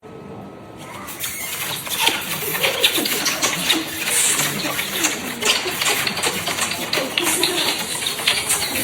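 Smooching: a continuous run of wet kissing and lip-smacking sounds, many small smacks close together, building up over the first second after a silence.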